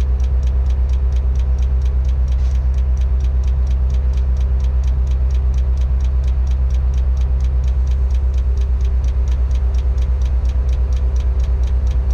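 Inside the cab of a Tadano crane: a steady low engine hum with an even, rapid ticking, about six ticks a second.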